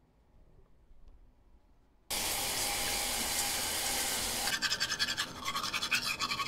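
A steady hiss of running water starts suddenly about two seconds in, then gives way to quick, repeated scraping strokes of a razor shaving through lather.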